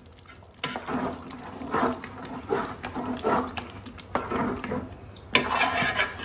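A ladle stirring thick chicken curry gravy in a large metal pot, working freshly added coconut oil through it: a run of irregular wet squelching and sloshing strokes, louder for a moment about five seconds in.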